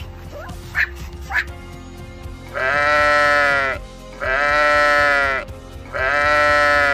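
Sheep bleating: three long, loud, evenly held bleats about half a second apart, starting about two and a half seconds in, after two short high yelps in the first second and a half.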